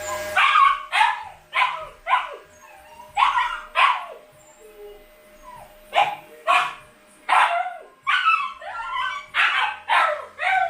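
Siberian husky puppy yipping and barking: about fifteen short, high calls, each falling in pitch, in clusters of two or three with short pauses between.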